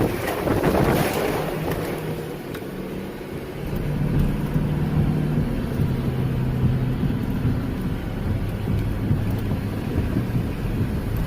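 Storm wind buffeting the microphone, strongest in a gust over the first second or so, with a low steady hum underneath.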